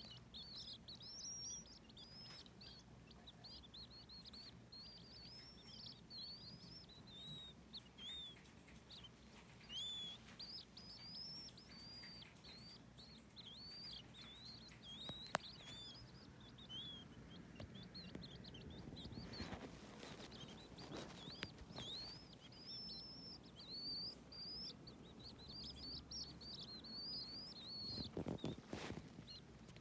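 Several tiny baby birds peeping continuously in short, high chirps, many rising and falling in pitch. A single sharp click comes about halfway, and bursts of rustling come about two-thirds of the way through and again near the end.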